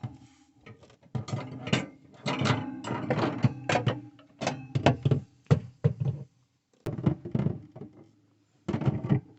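A Dometic fridge shelf and its locking lugs being lifted out and handled: a run of knocks, clicks and rattles, pausing for a couple of seconds before more knocking near the end.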